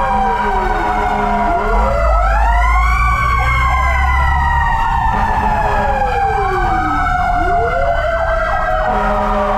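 Fire engine sirens wailing, heard from inside the cab of the responding truck: several overlapping tones rise and fall slowly over a few seconds each, over the low rumble of the truck.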